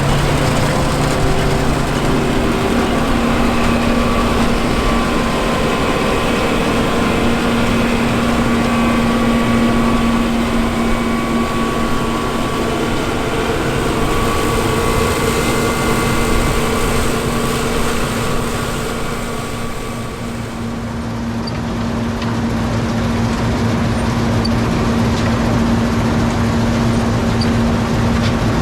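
John Deere 7720 Turbo combine running steadily while harvesting: a steady turbocharged diesel note under the wide rushing noise of the machine. About two-thirds of the way through the high hiss fades and the sound dips briefly, then the engine note carries on.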